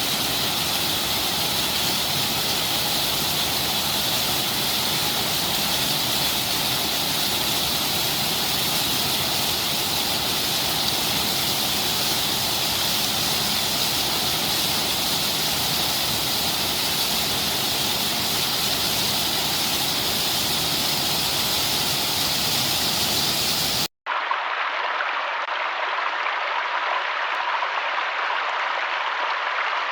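Steady rushing of falling or running water, a full even hiss. About 24 s in it breaks off for an instant and gives way to a duller, thinner water sound from another recording.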